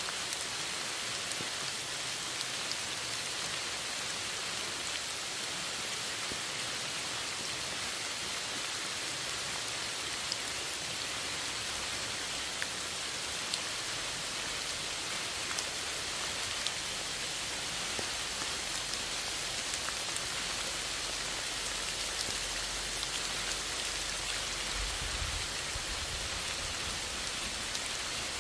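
Steady rain falling, an even hiss with individual drops ticking.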